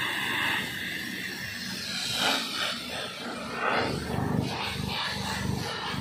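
Factory machinery running: a steady hiss over a low hum.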